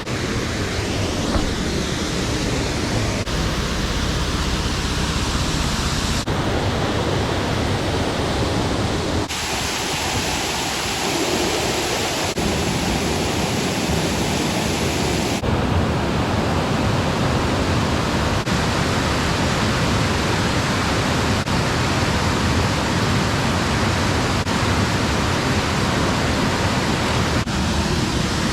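Waterfall: a steady, loud rush of falling water, with abrupt shifts in tone every few seconds.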